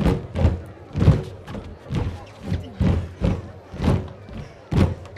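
A group of folk dancers stamping their feet in unison on a stage, a heavy thud about twice a second.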